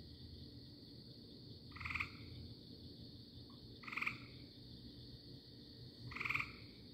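A treefrog gives three short trilled calls, about two seconds apart, over a steady high-pitched drone.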